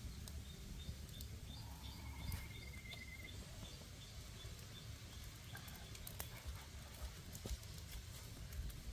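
Open wood fire crackling, with sharp scattered pops over a steady low rumble. Faint high chirps repeat in the background, with a short trill about two seconds in.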